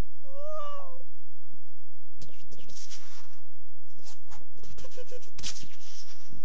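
A short meow-like cry near the start, then a string of clicks and hissing noise bursts, all over a steady low hum. These are homemade sound effects, not library recordings.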